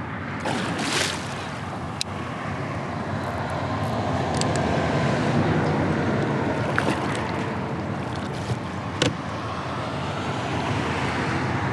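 Steady rushing traffic noise from a nearby interstate highway, swelling for a couple of seconds in the middle as vehicles pass, with a few short sharp knocks.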